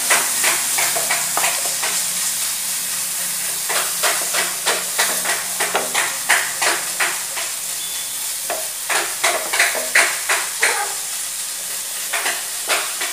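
Chopped onion and tomato sizzling steadily in a non-stick frying pan while a wooden spatula stirs and scrapes across the pan in quick strokes, with a short lull about eight seconds in.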